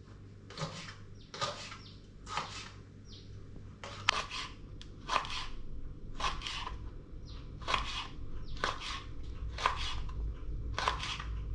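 Kitchen knife slicing green beans into small pieces on a plastic cutting board, about one cut a second, each stroke a short crisp chop.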